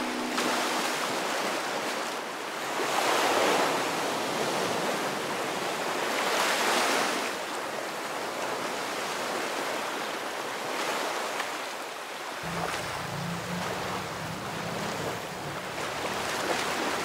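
Ocean water sound: a steady rushing wash of sea water that swells twice, a few seconds apart, with a deeper rumble joining about twelve seconds in.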